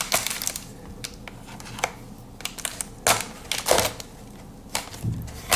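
Parcel packaging being handled and pulled open by hand: irregular rustling and crinkling with a few sharp crackles and clicks, the loudest about three seconds in.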